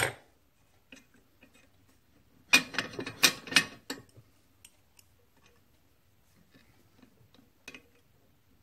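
Sharp metallic clicks and clinks from handling the flyweight governor parts on a cast-iron engine flywheel: a quick cluster about two and a half seconds in, then scattered light ticks and one more click near the end.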